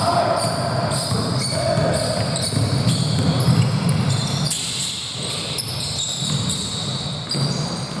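Basketball game on an indoor court: the ball bouncing on the floor, with many short, high sneaker squeaks.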